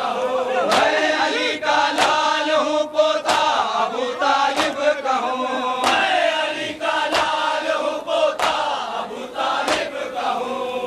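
A group of men chanting a nauha, a Shia mourning lament, in a steady melody, over a beat of sharp strikes about every second and a quarter, the rhythm of matam (chest-beating by the mourners).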